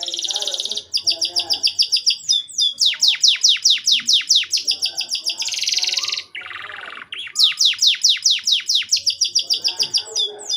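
Domestic canary singing loud rapid trills: runs of quickly repeated high notes, each sweeping downward, changing from one trill to the next with short breaks and a brief buzzy passage partway through.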